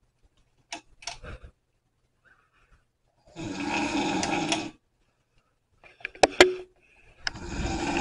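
Ceiling fan's pull-chain switch being worked to turn the light on and off: a few faint clicks, then a rattling burst about a second and a half long. Two sharp clicks follow, then another rattling burst of the same length.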